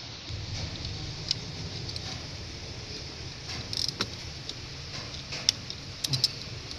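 Scattered light metallic clicks and ticks of hand tools and fittings being worked while fuel-injector lines are tightened, over a steady low hum.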